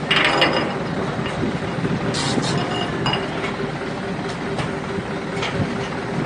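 Long-tail river boat's engine running steadily at low speed, with a few short metallic clinks.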